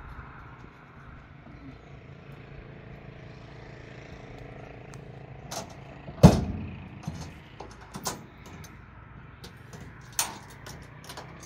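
A motor running steadily at low level, with scattered clicks and knocks over it; a sharp knock about six seconds in is the loudest sound, and another comes near the end.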